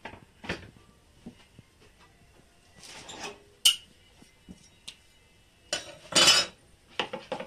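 A spoon clinking and scraping in a bowl as rice-flour batter is stirred and beaten, with a sharp clink about three and a half seconds in and a longer, louder scrape near the end.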